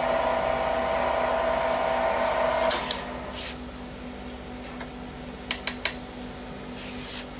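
Central Machinery mini mill's spindle motor running with a steady whine, which stops about three seconds in. A few sharp metal clicks and knocks follow as the graphite mold part is taken out of the machine vise.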